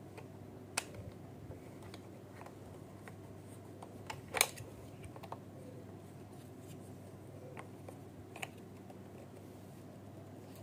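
Bubble gun toy being handled: sparse small clicks, a short crackle about four seconds in and another click near the end, over a low steady hum.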